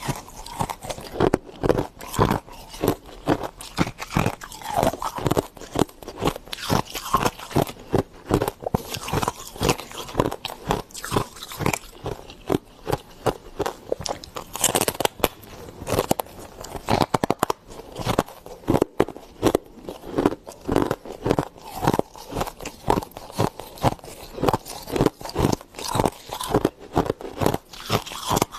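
Soft freezer frost being bitten and chewed close to the microphone: a fast, continuous run of crunches.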